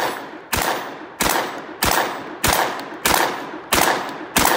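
Tokarev TAR 12P semi-automatic 12-gauge shotgun fired in steady rapid succession, about seven shots roughly two-thirds of a second apart. Each blast is followed by a long echo that dies away before the next shot.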